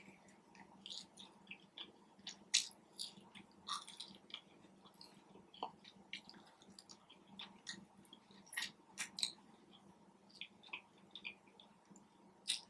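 Close-miked chewing and mouth smacking as food is eaten, with scattered short wet clicks and smacks.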